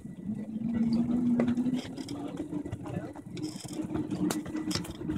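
A miniature railway locomotive and its passenger cars running along the track: a steady mechanical hum with a rattle underneath and a few sharp clicks.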